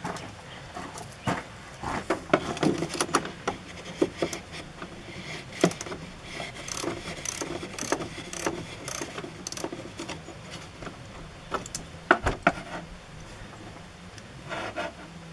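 A socket wrench clicks in short irregular runs as the 8mm nut on a truck battery's negative terminal clamp is loosened. Scattered metallic clicks and taps come from the tool and the terminal, with one louder knock about twelve seconds in.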